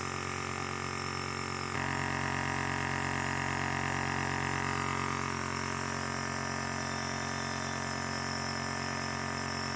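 Compressor nebulizer running with a steady buzzing hum and the hiss of the medicated mist; the hiss gets slightly louder and brighter about two seconds in.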